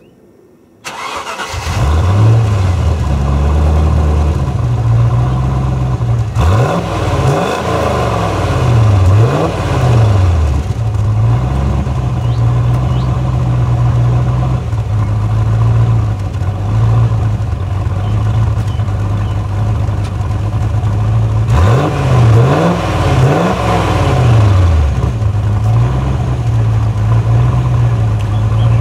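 1995 Land Rover Discovery's 3.9-litre V8 (V8i) running through its exhaust with the centre silencer removed. It idles and is revved up and down several times in two spells, about six to ten seconds in and again around twenty-two to twenty-five seconds. The louder, freer exhaust note comes from the missing centre silencer.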